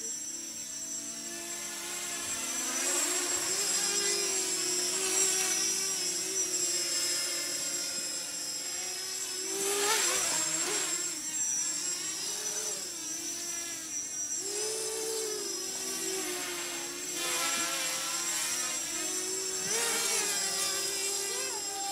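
A small 280mm racing quadcopter's brushless motors and oversized propellers buzzing in flight, the pitch and loudness rising and falling as the throttle changes, over a steady high whine.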